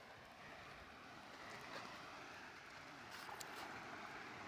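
Faint, steady outdoor background of wind and flowing canal water, with a few light clicks about three seconds in.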